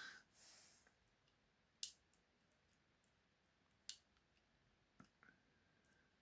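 Faint, sparse metallic clicks of a tensioner and wire pick working the levers inside a Squire 555 stainless steel lever padlock, three sharper ticks standing out over near silence.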